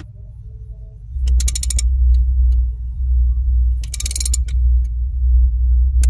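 Socket ratchet wrench clicking in two short runs, about a second in and again about four seconds in, as it tightens the bolt holding a quick-release steering wheel hub to the steering column. A steady low rumble sits underneath from about a second in.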